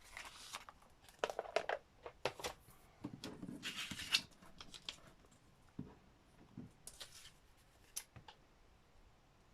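Paper being handled and cut with scissors: scattered snips, clicks and crinkly rustles, busiest in the first half and sparser after about five seconds.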